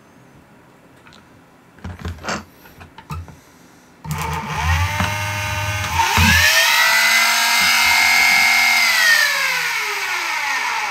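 Brushed flywheel motors of a 3D-printed Hummingbird foam-dart blaster spinning up with a rising whine about four seconds in, holding a steady high whine, then winding down in a falling glide near the end. A few clicks come before it and low knocks during the spin-up. It is a test of the switch wiring, which turns out reversed: the motors were wired to the front switch's normally open terminals, as the instructions said, where they should be on normally closed.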